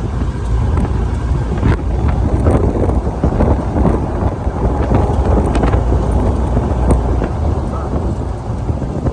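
Wind buffeting the microphone over the low rumble of a moving vehicle, with occasional crackles.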